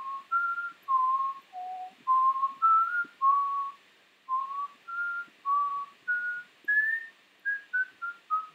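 A person whistling an idle tune: a string of short notes, about two a second, mostly on one pitch with a few higher ones, and a quick run of falling notes near the end.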